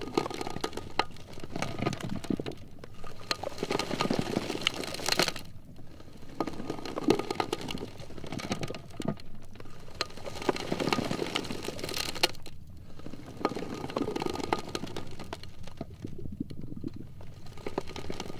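Sea ice floes rubbing and grinding against each other: a crackling, scraping rub full of small clicks that swells and fades in waves every three to four seconds.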